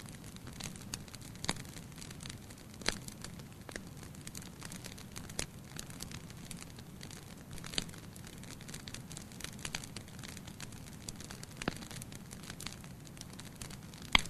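Fire burning in a fireplace, crackling with irregular sharp pops over a steady low rustle of flames. There are a few louder pops, the loudest near the end.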